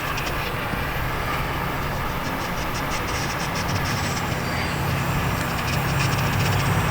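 Heat gun running steadily, blowing hot air to shrink heat-shrink tubing over a repaired battery cable, with a low motor hum under the rush of air.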